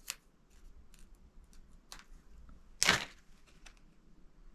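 Faint clicks and light rustling from a packet of dried herbs being handled, with one louder short noisy burst about three seconds in.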